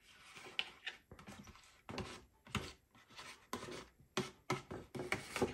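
Metal spoon scraping and tapping inside a plastic ready-meal tray as sauce and chicken are spooned out onto a plate, heard as a run of short, irregular scrapes and clicks.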